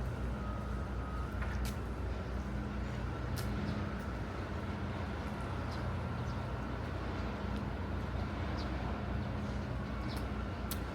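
Steady city traffic hum, with a faint constant tone above it and short high ticks every second or two.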